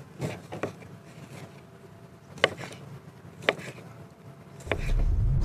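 Knife slicing through a sausage on a bamboo cutting board: a handful of separate sharp taps of the blade hitting the wood, two of them loud in the middle. Just before the end a low rumble comes in and is the loudest thing.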